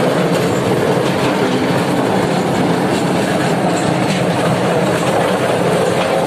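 Tractor-PTO-driven eucalyptus debarking machine running steadily, with eucalyptus logs clattering in its trough as their bark is stripped, over the tractor engine.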